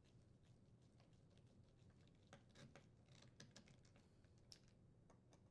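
Near silence with faint, irregular small clicks and taps of hand work on the refrigerator door hinge.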